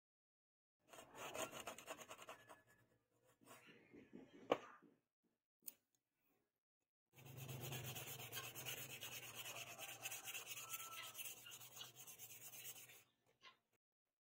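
Sandpaper rubbed back and forth by hand along a wooden knife handle, a run of quick, even strokes lasting about six seconds in the second half. Before it comes a shorter bout of rubbing and a single sharp knock.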